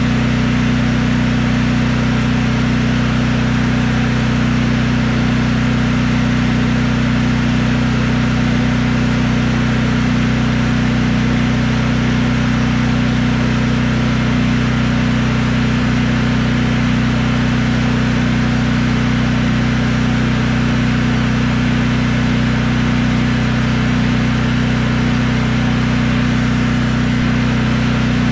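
Briggs & Stratton Elite 8000 portable generator engine running steadily with no load at its normal governed speed; the output is back to about 61 Hz and 120 V with a new AVR fitted.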